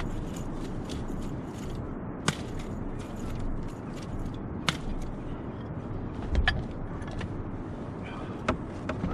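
Fishing gear being handled: scattered sharp clicks and taps at irregular intervals over a steady low rumble.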